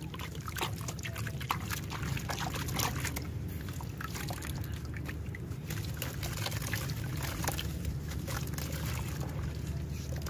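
Water trickling and splashing in a bucket as a soaked, crumbly stone block is broken apart by hand, with many small crackles as wet bits crumble off and drop into the water.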